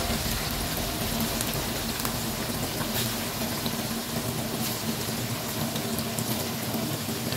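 Marinated chicken pieces deep-frying in hot oil in a pan: a steady bubbling sizzle with small crackles.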